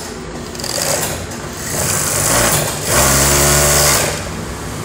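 Kansai Special three-needle coverstitch (collarín) industrial sewing machine stitching a test seam through fabric with lycra. It picks up speed from about a second in, runs at full speed with a steady hum for about a second, and stops shortly before the end.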